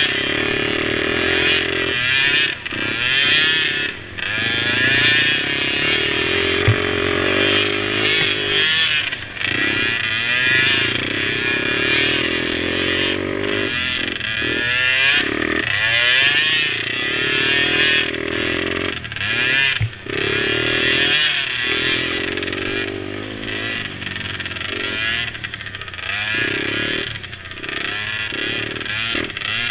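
Several mini quad engines racing at once, their pitches repeatedly rising and falling as the throttle is opened and closed.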